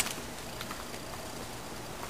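A single sharp clack right at the start, then a few faint taps over quiet room noise.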